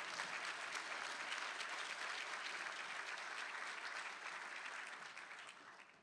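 Audience applause: a roomful of people clapping steadily, dying away near the end.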